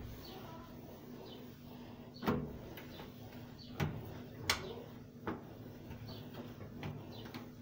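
A cloth wiping a wet stainless-steel gas stovetop dry, with four sharp knocks on the metal between about two and five seconds in.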